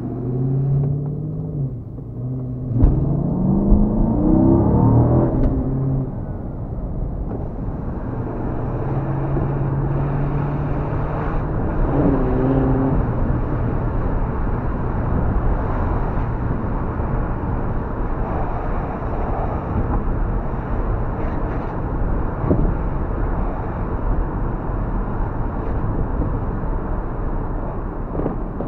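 Car engine and tyre noise heard inside the cabin while driving. The engine revs up with a rising pitch about three to five seconds in, with two sharp knocks there, then settles into steady cruising with road noise.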